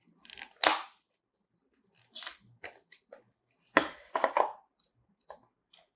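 Product packaging being handled and opened to take out a small USB Wi-Fi adapter: a series of short, irregular crackles, cracks and rustles, loudest about four seconds in.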